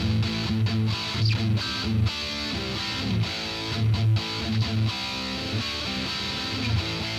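Electric guitar played through a Fender Frontman 25R practice amplifier: a run of picked notes with heavy low notes.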